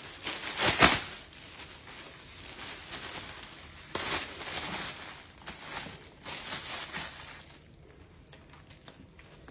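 Thin plastic slow-cooker liner bag crinkling and rustling as it is unfolded and spread out by hand. The loudest crackle comes about a second in, more bursts follow through the middle, and only faint rustles remain near the end.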